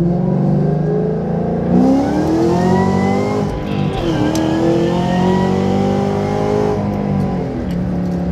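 Car engine heard from inside the cabin under acceleration: the revs climb, drop sharply at a gear change about four seconds in, climb again, then settle to a steadier, lower note near the end.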